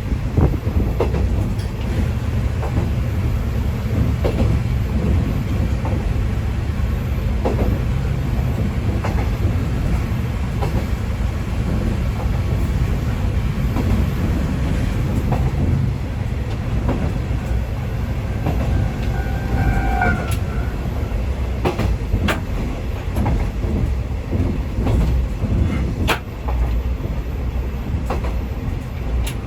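Former JNR KiHa 20-series diesel railcar (KiHa 205) running along the line, with a steady low rumble of engine and wheels and scattered clicks from the rail joints. About twenty seconds in there is a short, high pitched tone.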